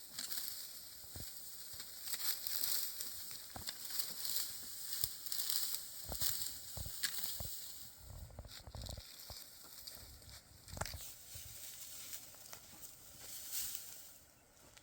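Dry wheat stalks rustling and crackling, with irregular sharp snaps and clicks.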